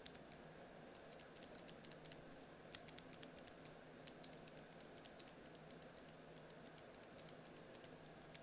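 Faint typing on a Tecware Spectre Pro mechanical keyboard with Outemu Brown tactile switches: quick, irregular keystroke clacks, several a second.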